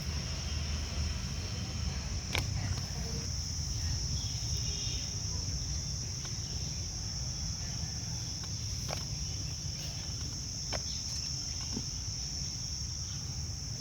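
Steady high-pitched trill of crickets with a low rumble underneath, and a few short clicks, the sharpest about two seconds in.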